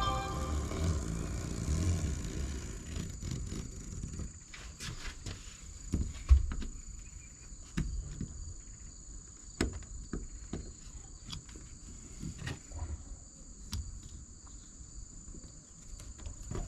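Handling noise from fitting a window screen: scattered light clicks and knocks, with one louder thump about six seconds in, over a steady high-pitched tone.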